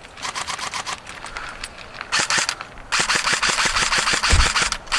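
Airsoft guns firing full-auto bursts, a rapid rattle of shots: fainter bursts at first, then a short loud burst about two seconds in and a longer loud one from about three seconds in.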